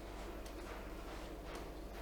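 Quiet room tone: a steady low hum with a couple of faint rustles.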